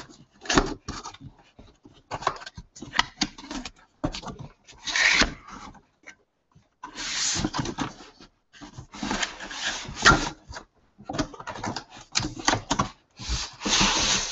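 Cardboard shipping box being handled and pulled open: irregular scraping and rubbing of cardboard on cardboard, in bursts with short pauses, mixed with a few sharp clicks and knocks.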